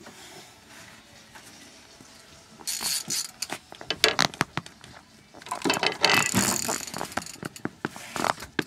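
Fishing reel ratcheting in rapid runs of clicks, one short run a few seconds in and a longer one past the middle, with scattered single clicks, the reel working under the load of a heavy hooked fish on a hard-bent rod.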